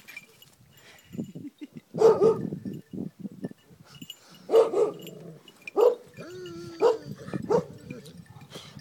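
Dog barking: a series of short barks about a second apart, with a longer wavering call between them around six to seven seconds in.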